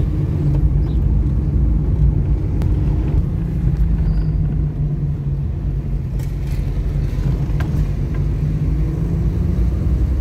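Car engine running and tyres rolling on a wet road, heard from inside the cabin as a steady low rumble.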